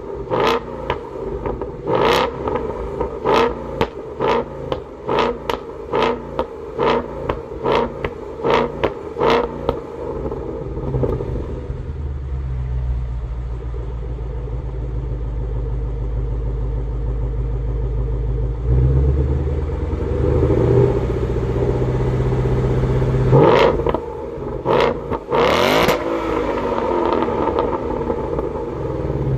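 Ford Mustang V8 through a Remus valved exhaust, revved in quick short blips, about one to two a second for the first ten seconds. It then settles into a steady low running for about twelve seconds before a few more sharp revs near the end.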